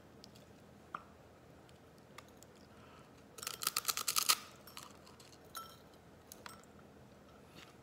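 Dry, uncooked instant ramen noodles crunching as a bite is taken from the raw brick: a dense run of crackling crunches lasting about a second near the middle, with a few single crunches and snaps before and after.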